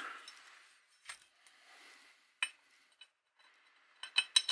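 Steel angle bracket being handled on a workbench. A short scrape is followed by a few single light metal clinks, then a quick run of louder clinks near the end.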